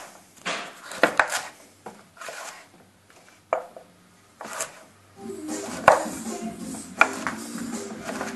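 Chef's knife cutting celeriac on a wooden cutting board: single sharp knocks of the blade striking the board at irregular intervals, roughly one a second. Background music comes in about five seconds in.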